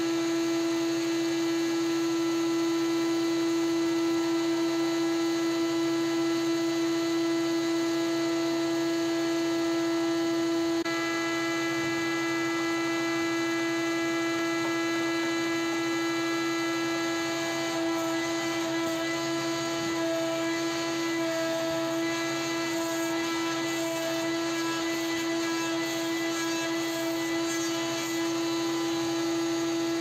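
Wood-Mizer WM4500 industrial band sawmill running and sawing through a log with a steady, even whine. The tone wavers slightly in the second half.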